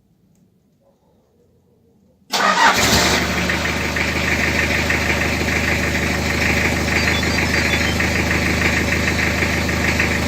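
Near silence, then about two seconds in the Toyota Hiace truck's engine starts at once, set off by the newly installed alarm's remote start, and settles into a steady idle.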